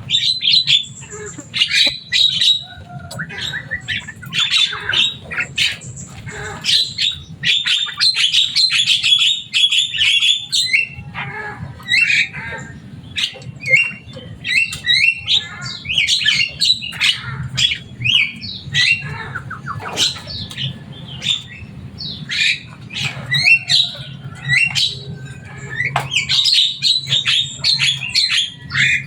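Javan myna (jalak kebo) calling without pause: a busy stream of harsh squawks and chirps, many sliding up or down in pitch, one after another.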